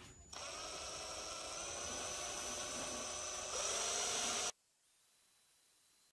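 Handheld power drill running a 5 mm twist bit into a plastic spool holder: the motor whines steadily, goes louder and higher about three and a half seconds in, then stops suddenly about a second later.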